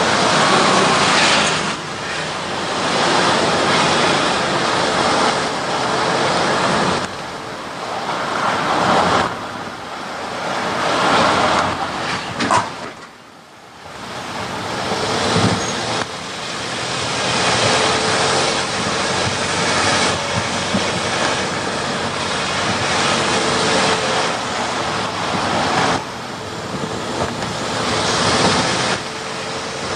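A car driving along a road: steady road and wind noise that swells and eases, with a brief drop about thirteen seconds in.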